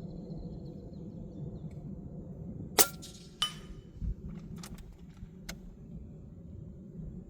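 A single shot from a Hatsan Factor Sniper Long PCP air rifle, a sharp crack about three seconds in, followed over the next few seconds by a handful of lighter metallic clicks and knocks.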